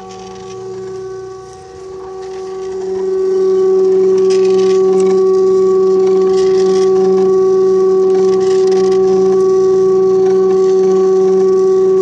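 NEMA 17 stepper motor driving a 3D-printed herringbone gear winch that winds the cables of a chicken coop ramp: a steady, multi-pitched electric whine. It grows louder over the first three seconds, then holds steady.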